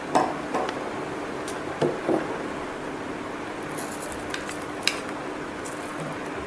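Metal spoon clinking against a glass jar and a plastic tray while chopped fruit is spooned into the jar. There are a handful of light knocks in pairs, the loudest right at the start, over a steady low hum.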